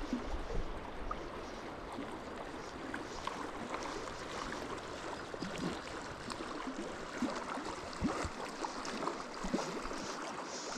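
River water flowing and babbling, a steady rush with scattered small splashes.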